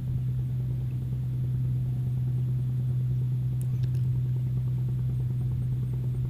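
A steady low hum of background noise, unchanging throughout, with no other distinct sound.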